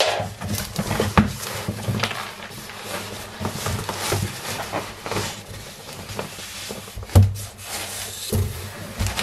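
A cardboard delivery box and its packaging being handled and opened: scattered knocks and rubbing, with one louder thump about seven seconds in.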